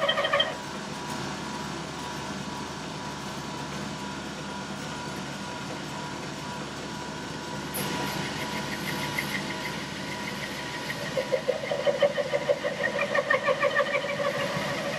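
1941 South Bend 13-inch metal lathe running, turning a sawmill blade guide roller. A rhythmic pulsing squeal from the cut, a few pulses a second, sounds at the very start and again from about eleven seconds in. Between them is a steadier machine noise that grows a little brighter about eight seconds in.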